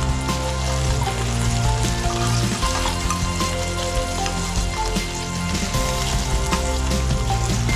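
Small pieces of rabbit sizzling as they fry in oil in a non-stick frying pan, with a few clicks of metal tongs against the pan as the pieces are turned and lifted out. Background music plays underneath.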